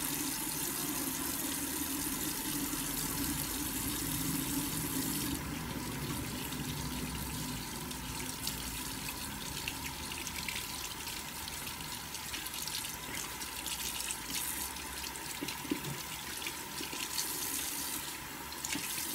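Bathroom sink tap running steadily into the basin while a makeup brush is rubbed in a wet, soapy palm and rinsed under the stream.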